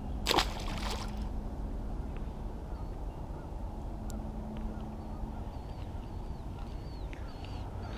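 A small channel catfish splashing into the river once, about half a second in, as it is tossed back. After it, a steady low outdoor rumble with faint bird calls.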